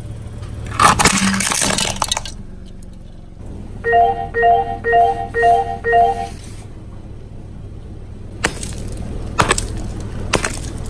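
A car tyre rolls over a plate of colourful egg-shaped objects about a second in, crushing them with a loud crunch. Then five short electronic beeps, evenly spaced about half a second apart, and near the end sharp hammer blows smash balls on concrete, about one a second.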